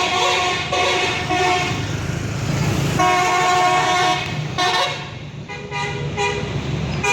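Multi-tone 'telolet' bus horn playing a tune in several bursts of notes, the longest about three seconds in, over the bus engine running.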